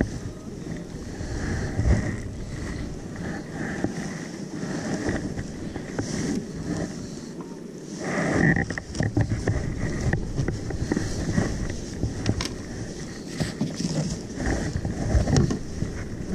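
Wind buffeting the microphone and water lapping against a kayak hull, with scattered small knocks and clicks from handling gear aboard; the sound gets louder about eight seconds in.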